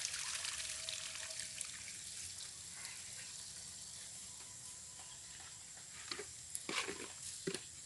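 Faint, steady rush of river water with outdoor ambience, broken by a few short knocks and rustles near the end from hands handling gear.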